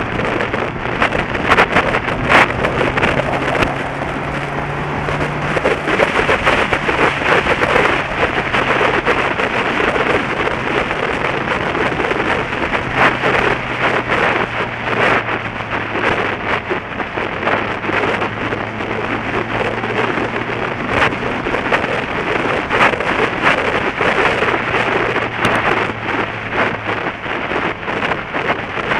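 Heavy wind rush buffeting the microphone of a moving motorcycle at road speed, with the engine's low, steady hum underneath.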